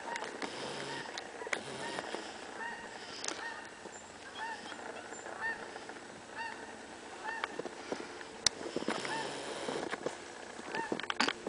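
A goose honking over and over, a short call repeated about every two-thirds of a second. A sharp click comes about eight and a half seconds in.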